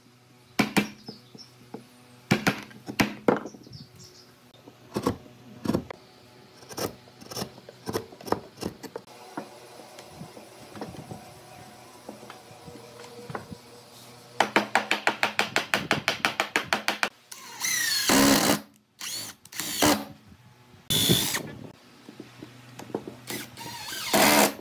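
Wooden mallet striking a chisel, a string of sharp knocks as a joint is cut in a wooden frame. Later a cordless drill runs in several short, loud bursts, with a fast run of regular clicks just before them.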